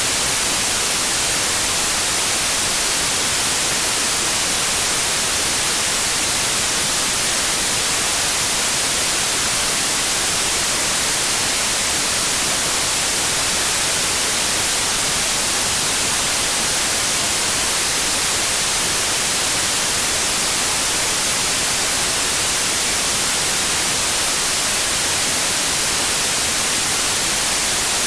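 Steady white noise, an even hiss with no change, strongest in the high end.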